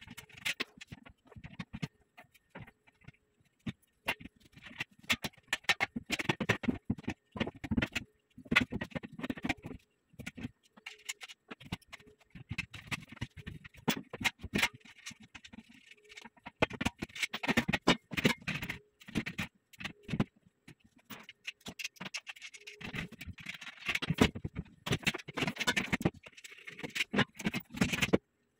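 Metal bed-frame rails and bolts knocking, clicking and scraping as the frame is handled and fitted together, in irregular clusters of short clatter with brief pauses between them.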